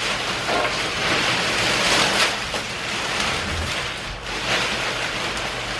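Thick plastic wrapping on a rolled-up boxed mattress crinkling and rustling as the mattress is unrolled, a continuous rustle that swells and eases several times.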